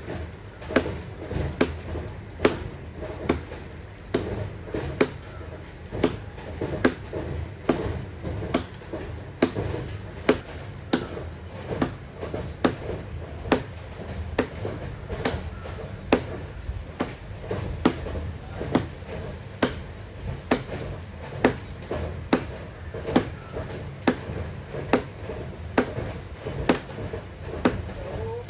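A hand tool striking wood in a steady rhythm: sharp blows a little more than once a second, over a low background rumble.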